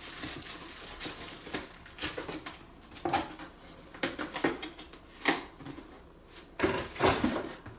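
Cardboard box and paper packaging being handled: irregular taps, scrapes and rustles, with a few sharper knocks in the second half.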